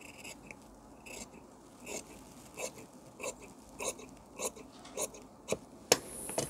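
Large tailor's shears cutting blouse fabric: a steady series of snips, about one every 0.6 seconds, followed by a louder, sharper click near the end.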